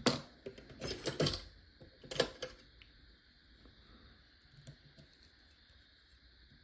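Small metal tools clicking and clattering as they are handled and set down, in three quick bursts over the first couple of seconds, the middle one with a brief metallic ring.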